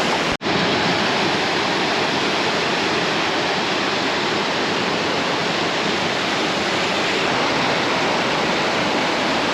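Steady rush of flowing water, even and unbroken apart from a momentary dropout just after the start.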